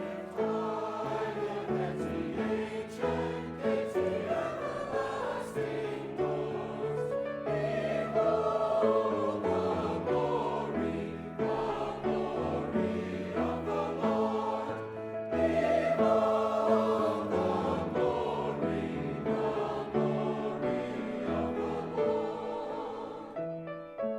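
A choir singing with keyboard accompaniment, held notes moving from chord to chord.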